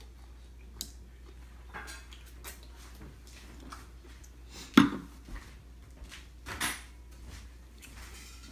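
Metal cutlery clinking and scraping on ceramic plates while someone eats: a few scattered taps, with one sharp clink about five seconds in.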